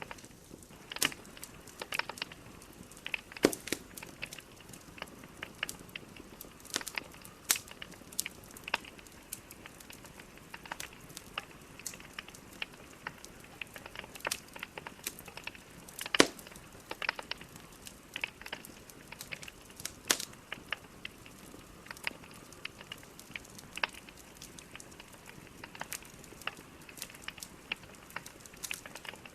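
Wood logs burning in a fireplace: a steady soft hiss with frequent irregular crackles and sharp pops, a few louder snaps standing out.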